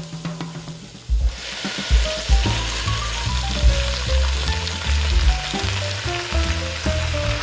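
Food sizzling and frying in a hot pan, the sizzle starting abruptly about a second in and then holding steady.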